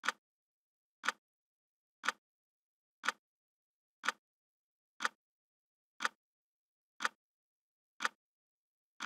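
Clock ticking sound effect of a countdown timer: one short sharp tick each second, about ten in all, with silence between.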